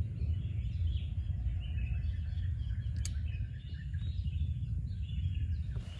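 Small birds chirping in many short high notes over a steady low rumble of wind.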